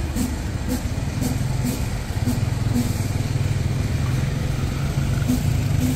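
City street ambience: a steady low rumble of motor traffic, with footsteps on pavement ticking about twice a second.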